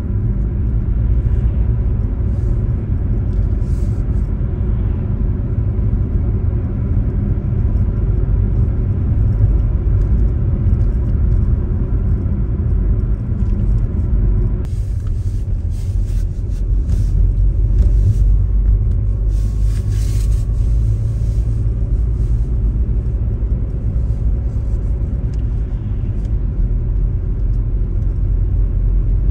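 Steady low rumble of a car driving, heard from inside the cabin. From about halfway through, a brighter hiss sits over it for several seconds.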